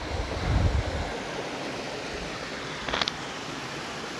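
Shallow rocky stream rushing steadily over stones, a continuous hiss of flowing water. A low rumble comes about half a second in, and a quick cluster of clicks about three seconds in.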